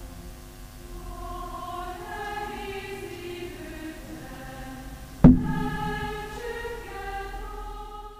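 A choir singing slow, long-held chords, with one sharp click a little past halfway through.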